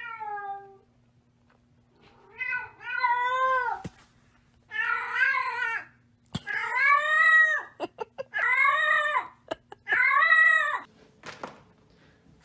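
Domestic cat meowing: one short meow, then five long, drawn-out meows in a row.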